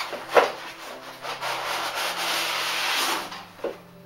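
Styrofoam packing insert scraping against cardboard as a box is pulled off it: a sharp knock about half a second in, then a long rough rub that stops near the end.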